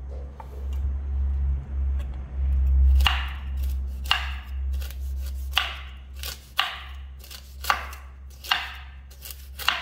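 A knife chopping hard, ripe noni fruit: a run of sharp chops about once a second, starting about three seconds in, after a low rumble.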